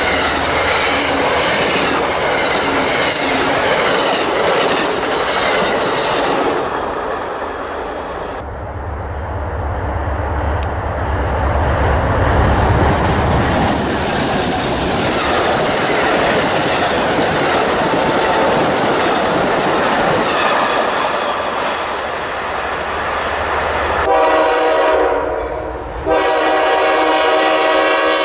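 Train passing with its wheels clattering on the rails and a low rumble. About 24 seconds in, a locomotive horn starts blowing a steady multi-note blast, breaks off briefly and sounds again near the end.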